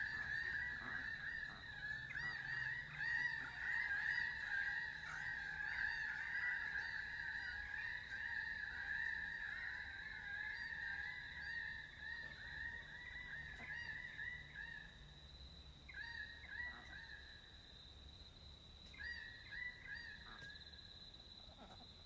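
A dense chorus of many birds calling over one another, with honking calls, thinning after about fifteen seconds to a few scattered calls. A steady faint high whine runs underneath.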